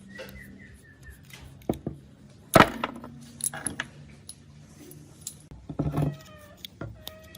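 Metal tools and small metal parts clinking and knocking while the rusty circular saw is being worked on, with one louder knock about two and a half seconds in and a brief ringing tone near the end.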